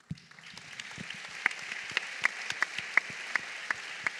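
Audience applauding, starting at once and quickly swelling to a steady clatter of many hands, with a few sharp single claps standing out.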